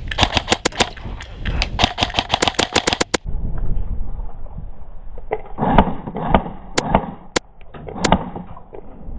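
Airsoft guns firing: a quick string of sharp shots for about three seconds, then a few single shots spaced apart.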